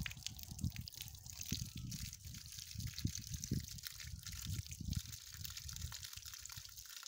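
Thin stream of water from a brass tap on a rainwater storage tank, trickling and splashing onto a concrete block and gravel. Irregular low thumps run under it.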